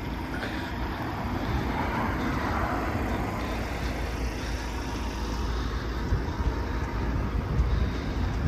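Outdoor background noise: a steady low rumble of road traffic with wind buffeting the microphone, a little louder after the first couple of seconds and gustier near the end.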